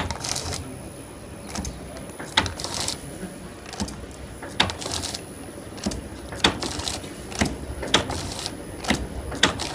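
Three-side-seal packing machine for laundry powder running, its mechanism giving repeated sharp clicks and clanks over a steady mechanical hum. Its speed is being turned up on the inverter toward about 39 bags a minute, and the clicks come closer together near the end.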